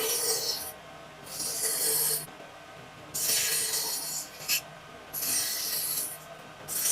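Scratchy strokes rubbing back and forth across a wooden cutting board, about five of them, each close to a second long, with a short tap partway through.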